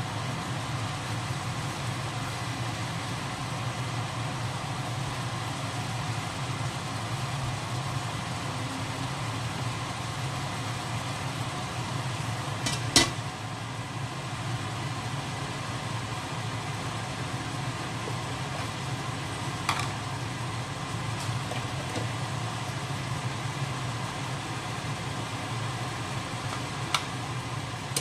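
Squid cooking in a wok: a steady hiss over a low mechanical hum. About halfway through, a metal dome lid clanks onto the wok, and a few lighter clicks follow.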